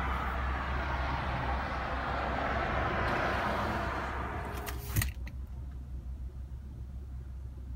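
Steady road noise from a car driving. About five seconds in, a short whine is cut off by a sharp clunk, and the noise drops to a low hum.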